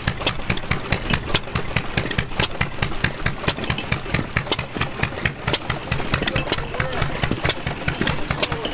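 Antique stationary gas engines running, a rapid, somewhat uneven string of sharp exhaust pops.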